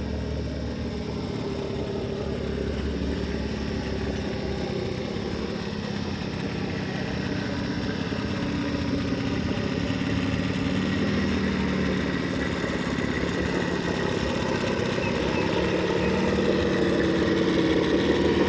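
Axial SCX10 II RC rock crawler's electric motor and geared drivetrain whirring steadily as it crawls, growing louder toward the end.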